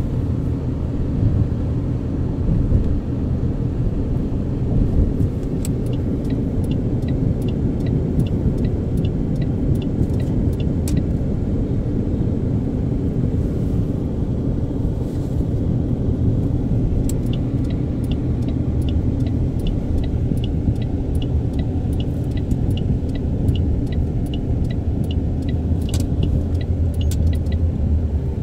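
Steady low rumble of road noise inside a moving taxi's cabin. For long stretches from about six seconds in, a light regular ticking comes about twice a second.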